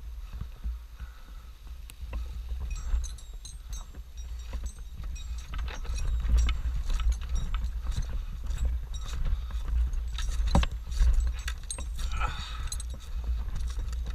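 Irregular clicks, clinks and knocks of a tree climber's gear and handholds as he works his way over a roof and sets a rope tie-in point, busiest in the middle, over a low rumble.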